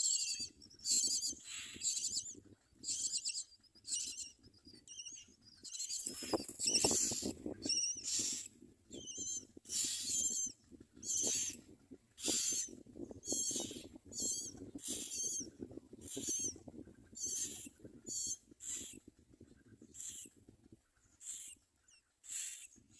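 Common myna nestlings calling again and again, shrill, wavering high-pitched calls about one a second, the begging of chicks waiting to be fed. A low rumble sits under the calls from about a quarter of the way in until near the end.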